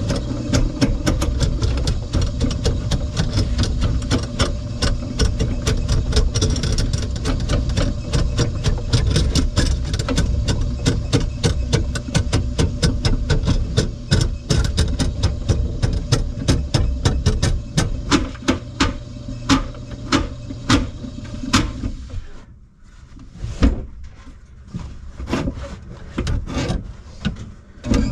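Powered drain snake running, its motor humming while the cable clatters rapidly in the clogged kitchen drain line. The motor stops about 22 seconds in, leaving scattered clicks and knocks as the cable is handled.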